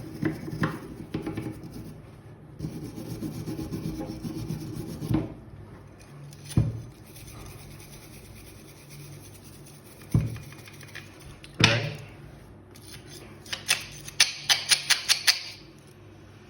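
Scrubbing and brushing rust off a metal hand tool, in stretches of rapid back-and-forth rubbing. The tool knocks a few times, then gives a quick run of clicks near the end.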